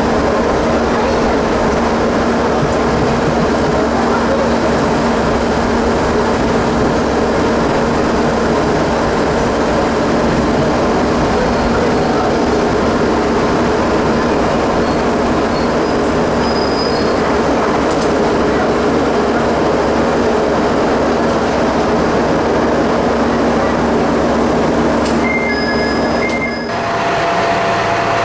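Ex-JNR KiHa 30-series diesel railcar running, heard inside its cab: a steady engine hum under loud rolling noise as it runs into a station, with thin high squeals about halfway through and again just before the end. Near the end the sound cuts to the railcar idling at the platform.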